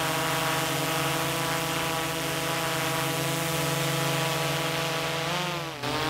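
Quadcopter drone hovering, its propellers giving a steady buzzing whine; about five seconds in the pitch dips and then climbs as the drone moves off.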